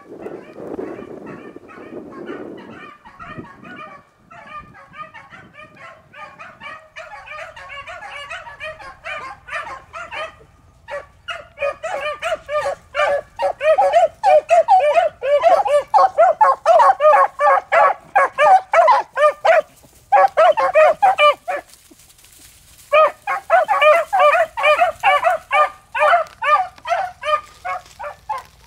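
A pack of beagles baying in rapid, overlapping cries as they run a rabbit's scent trail. The cries are fainter at first and grow much louder about a third of the way in as the hounds close in, with a brief lull shortly before the end before the baying picks up again.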